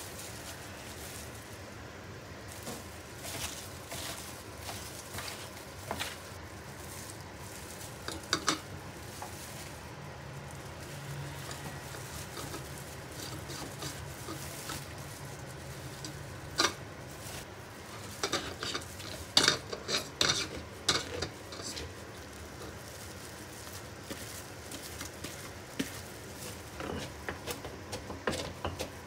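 Shredded cabbage and kitchenware being handled during sauerkraut making: light rustling with scattered clinks and knocks of utensils against dishes, and a quick run of sharper clinks about two-thirds of the way through.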